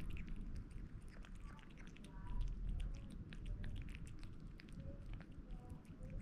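Kitten eating canned wet cat food: many small wet smacking and licking clicks, with a few faint short cat vocal sounds in between.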